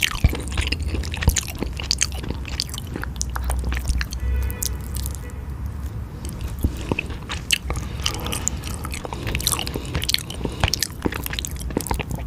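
Close-miked mouth sounds of a person eating eel and spicy noodles: a steady run of small wet clicks, bites and chews.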